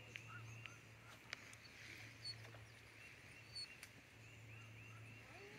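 Faint outdoor ambience: a quick, steady series of small, high chirping calls, about three a second, over a low steady hum.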